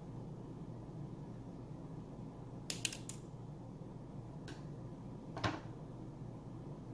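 A few short plastic clicks from handling a small fashion doll and its packaging: a quick run of three about three seconds in, then two single clicks a second apart, over a steady low room hum.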